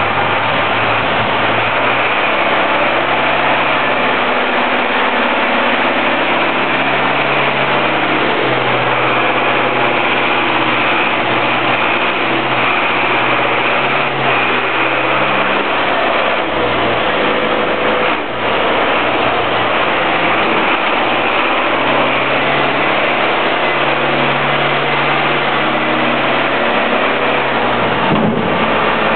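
International Harvester 845 tractor's diesel engine running, its speed rising and falling several times, under a loud steady hiss.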